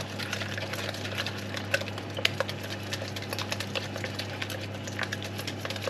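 A utensil beating an egg and cheese mixture in a plastic jug, making quick, irregular clicks and taps against the jug, over a steady low hum.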